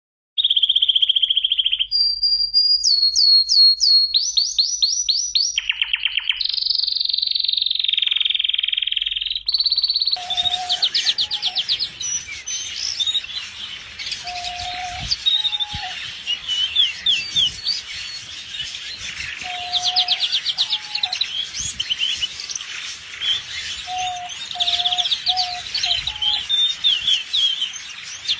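Domestic canary singing a long, varied song of rapid trills and rolls of repeated high notes. About ten seconds in, the recording turns noisier, and a low note, often doubled, repeats now and then under the song.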